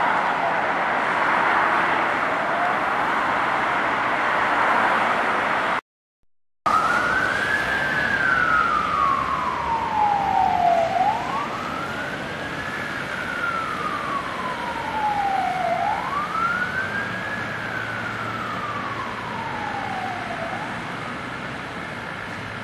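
Police van's electronic siren sounding a wail, mixed with road traffic. After a short dropout about six seconds in, the wail is clear: each cycle rises quickly, then falls slowly, repeating about every five seconds, and it grows fainter near the end.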